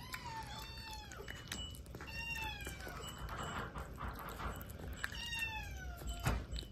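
A cat meowing three times, each a drawn-out call falling in pitch, about two seconds apart, with a sharp click near the end.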